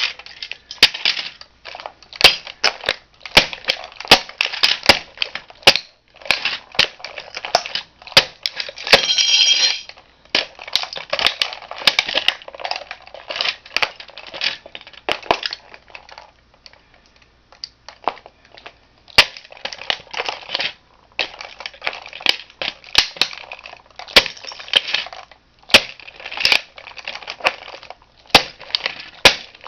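Plastic toy model car being crushed underfoot by a shoe: irregular cracking, crunching and snapping in clusters with short pauses, and a brief high squeal about nine seconds in.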